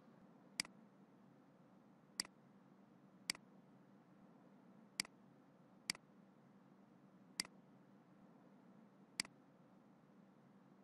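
Seven short, sharp clicks from working a computer, spaced irregularly a second or two apart, over a faint steady hum.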